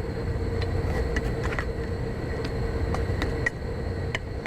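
Steady low machine rumble with a faint hum, over which come a dozen or so light, irregular clicks of a utensil against a bowl as a finishing sauce of herbs, zest and olive oil is mixed.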